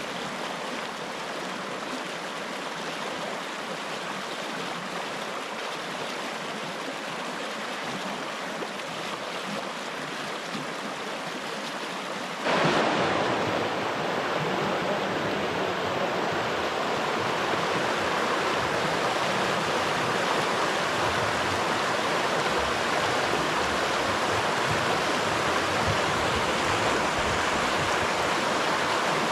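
River water running over rocks, a steady rushing noise that suddenly becomes louder and fuller about twelve seconds in.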